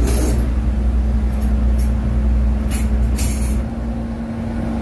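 Steady low rumble with a constant hum over it, broken by a few short rustling noises. The deep rumble eases off near the end.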